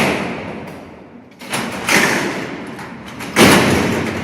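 Alcatraz's steel-barred sliding cell doors being run and slamming shut: four heavy metal clangs, one at the start, two about a second and a half and two seconds in, and the loudest about three and a half seconds in. Each rings out in a long echo through the cellhouse. This is the sound that marked each part of an inmate's day.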